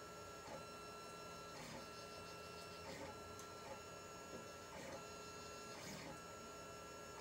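Lulzbot TAZ 5 3D printer running, its stepper motors whining in steady tones as the print head moves. The tones stop and change every second or so, with faint ticks between moves.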